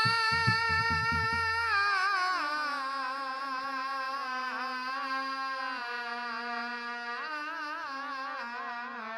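A man sings a long, drawn-out, wavering melodic line in a jikdi folk-bhajan style, accompanied by sustained harmonium notes that change pitch a few times. A few drum strokes sound in the first second and a half.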